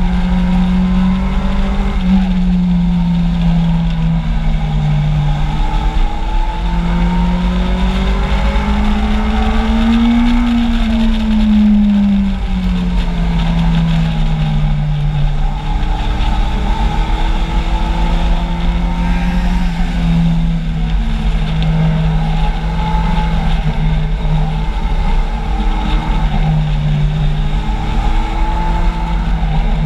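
Kawasaki Z750's inline-four engine under way, heard from on board. Its pitch rises and falls with the throttle through a series of bends, highest about ten seconds in, over a steady low wind rumble.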